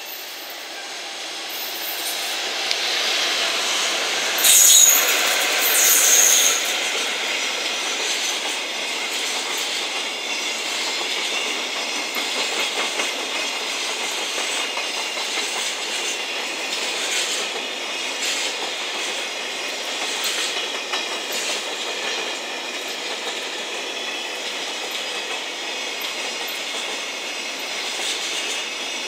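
Electric-hauled container freight train passing close by: steady rolling noise of steel wheels on rail that builds over the first few seconds, with clickety-clack over the rail joints. Two short high wheel squeals come about five and six seconds in.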